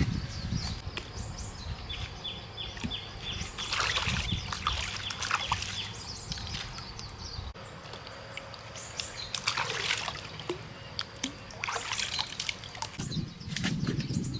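Water sloshing and splashing in several short bursts.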